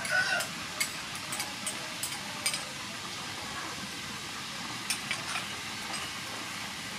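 Chili sauce and seasonings sizzling gently in a frying pan as a steady hiss, with a few light clinks of a spoon scraping sauce out of a small bowl.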